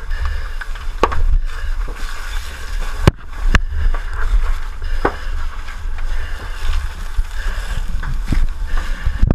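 Fire hose stream spraying water onto a burning structure: a steady rushing hiss over a heavy low rumble, broken by several sharp cracks, at about one, three and five seconds in.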